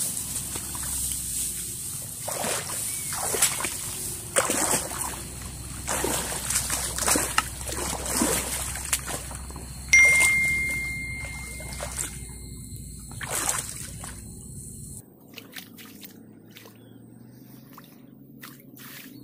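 Wading in a shallow muddy ditch: irregular splashes and sloshes of water, with grass rustling, as a wire-mesh fish trap is set into the water. Quieter trickling and squelching in the last few seconds. An electronic chime rings for a few seconds about halfway through.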